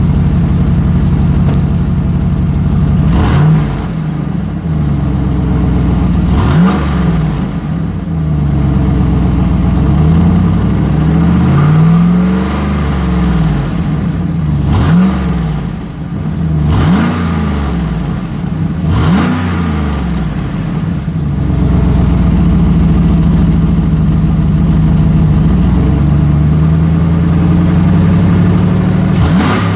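2008 GMC Sierra Denali's 6.2L L92 V8 idling and being blipped in a series of quick revs that rise and fall straight back, then running steadily for several seconds before one last rev near the end. Its exhaust has a leak just ahead of the secondary catalytic converter, the resonator is deleted and it dumps before the axle.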